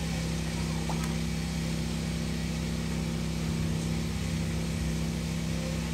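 Steady low machine hum of a small motor running without change, with one strong low droning tone.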